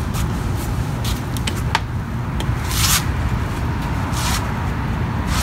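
Handling noise from a plastic-bodied leaf blower being lifted and moved: scattered sharp clicks and knocks and two short rubbing scrapes, the second about four seconds in, over a steady low rumble.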